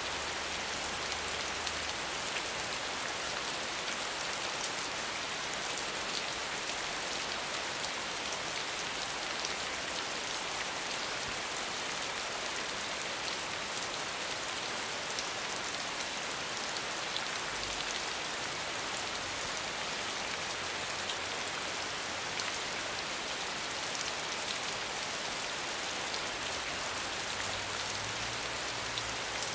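Steady rain falling on the ground: an even hiss of countless drops, mostly in the upper range, flecked with the faint ticks of single drops.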